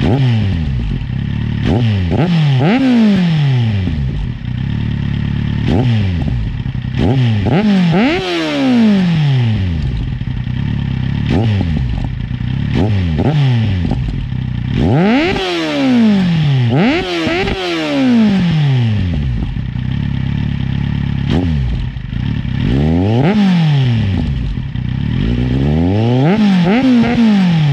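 Kawasaki Z 750 R's inline-four engine revving up and down under way, its pitch climbing and dropping many times over. Short crackling clicks from the microphone come and go through it.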